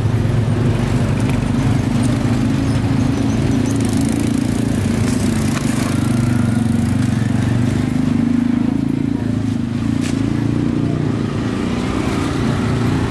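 Steady low engine drone of street traffic with motorbikes, with a few faint clicks.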